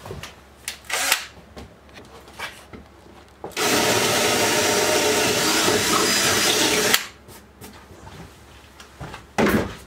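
Cordless drill boring a small hole through a pine wall board: it runs steadily for about three and a half seconds, then stops suddenly. Light handling clicks come before it and a short knock near the end.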